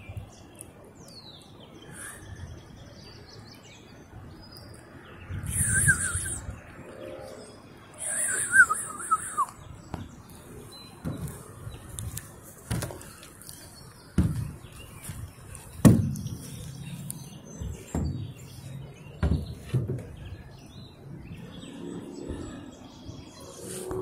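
Birds calling, with two quick runs of falling chirps about six and nine seconds in. From about eleven seconds on come dull thumps about every second and a half, the sound of walking across a wooden footbridge.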